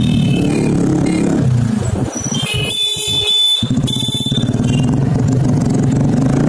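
Sport motorcycle with a blue-tipped aftermarket exhaust, running loud at low road speed. Its low exhaust note drops out for a moment about three seconds in.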